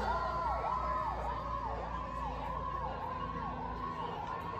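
Fire engine siren sweeping up and falling back again and again, about one and a half sweeps a second, with a slowly falling whine beneath it, fading as the engine drives away.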